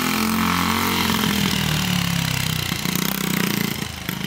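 Yamaha TT-R90 dirt bike's small single-cylinder four-stroke engine running at low throttle while the bike is ridden, its pitch wavering slightly. The level dips briefly near the end as the bike moves away.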